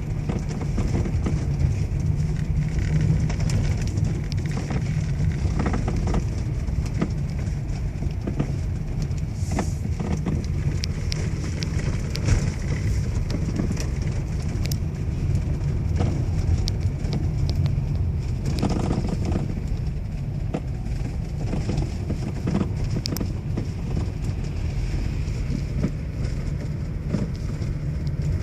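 Toyota Alphard 3.5 with a steady low rumble from the running vehicle and scattered short knocks through it: the steering knocking noise fault.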